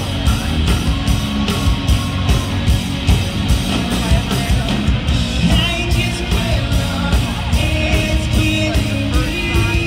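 Live rock band playing loudly with a steady drum beat, bass and guitar, and a singer's voice, clearest from about halfway through.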